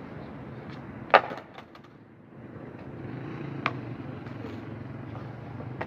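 A skateboard cracks sharply against concrete about a second in, then clatters with a few smaller clacks. A single clack follows near the four-second mark, over a low steady background rumble.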